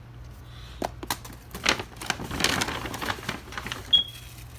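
Clicks, taps and rustling of fireworks packages being handled and set down, with a sharp click and a brief high squeak near the end.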